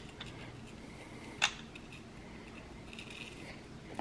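A single sharp click about a second and a half in, with a few fainter ticks, over quiet room tone.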